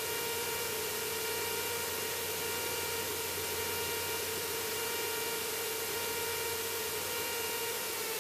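Steady cockpit noise of a light single-engine Cessna's engine and propeller on short final: an even hiss-like drone with a set of steady tones that drop slightly in pitch near the end.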